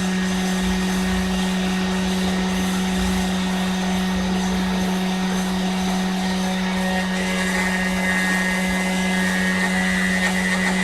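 Small hobby CNC router's spindle motor running with a steady hum. A higher whine joins about three-quarters of the way through.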